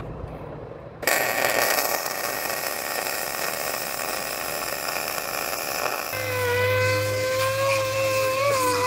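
Arc welding on a steel truck frame, a steady hiss. About six seconds in, an air-powered disc sander starts up on the fresh weld with a steady high whine.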